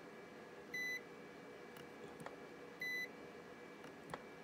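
Handheld spot welder beeping: two short high-pitched beeps about two seconds apart, followed by a single sharp click near the end.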